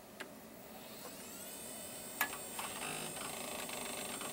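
An old Western Digital Caviar hard drive spinning up as the PC powers on: a whine that rises in pitch and settles into a steady high tone, with a few sharp clicks and a short burst of rapid clicking from the heads seeking. The owner calls it a nice sounding hard drive.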